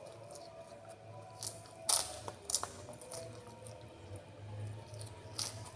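Close-miked eating sounds: chewing, with a few sharp clicks and crunches, the loudest about two seconds in.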